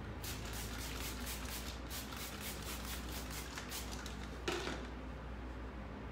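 Hand trigger spray bottle squirted rapidly, about five short hissing sprays a second for some four seconds, misting the wet paint on the cabinet door. Then a single knock as the plastic bottle is set down on the concrete floor.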